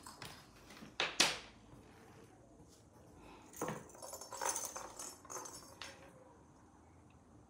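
A cat moving about inside a cardboard box: two sharp knocks about a second in, then a few seconds of scuffling and rustling against the cardboard.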